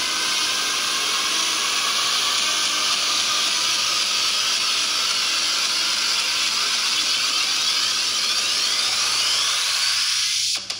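Hissing synthesizer noise sweep, the intro build of a darksynth track, with faint glides rising and falling through it. It cuts off suddenly near the end.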